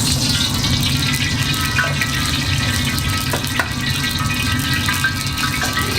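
Fried rice sizzling in a hot pan over a steady low rumble, with two sharp clicks about three and a half seconds in.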